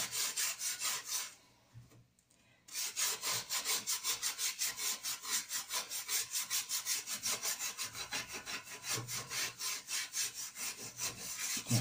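Hand scrubbing the greasy side of a metal pot with toothpaste, in quick back-and-forth strokes of about five a second. The strokes stop for about a second and a half just over a second in, then carry on steadily.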